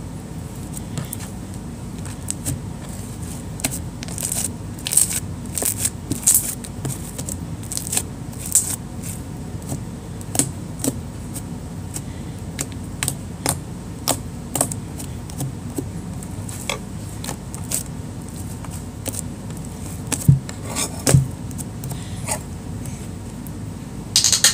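Irregular clicks and scrapes of slime being mixed in a plastic container, with a few louder knocks near the end.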